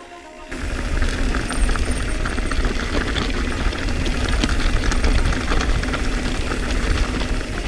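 Mountain bike rolling fast down a dirt and gravel trail: heavy wind rumble on the microphone and a dense rattle and crunch of tyres over gravel, starting about half a second in.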